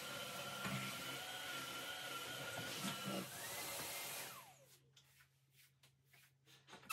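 Vacuum cleaner running with a steady whine, then switched off about four seconds in, its motor winding down with a falling pitch. A few light knocks and clicks follow.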